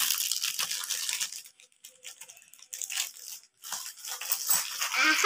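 Bangles jangling and clinking in a quick rattle for about the first second and a half, then only scattered clicks.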